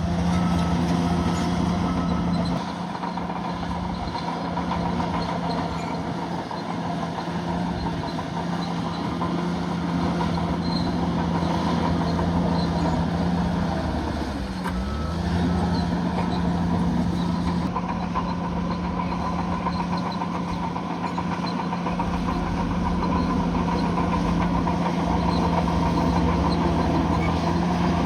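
Crawler bulldozer's diesel engine running steadily under load. The engine's pitch dips briefly and recovers about halfway through.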